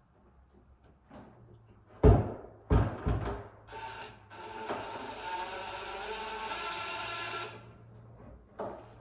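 Three sharp knocks on wood, then a cordless drill running steadily for about four seconds, as when screws are driven while hanging a door.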